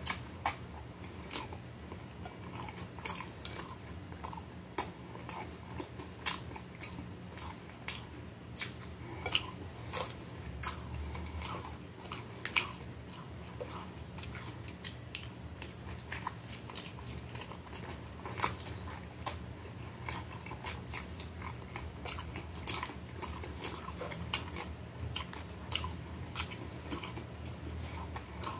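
Close-up chewing and biting of a homemade hot dog topped with crunchy potato sticks: irregular crisp crunches and mouth clicks, over a low steady hum.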